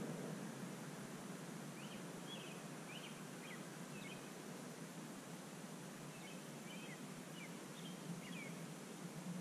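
Steady hiss and low hum, with faint, scattered short chirps from a small animal, in two loose runs a few seconds apart.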